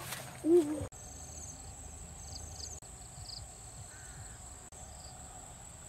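Insects buzzing steadily on a high note, with a few short chirps about two to three seconds in, over faint outdoor ambience. A brief woman's vocal sound is heard at the very start.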